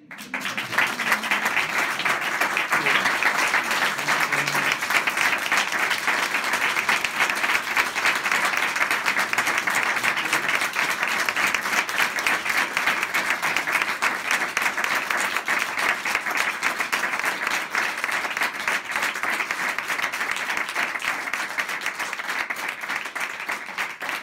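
Audience applauding steadily and at length, easing off a little near the end.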